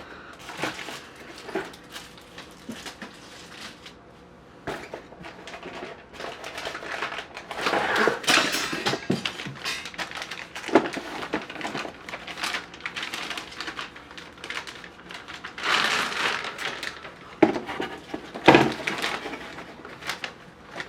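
Hands handling PC parts and their packaging: irregular rustling, clicks and light knocks, with louder bursts of rustle several times.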